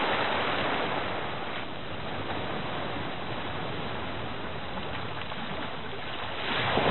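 Steady rushing of water, small waves washing on a shore, starting and stopping abruptly and swelling a little near the end.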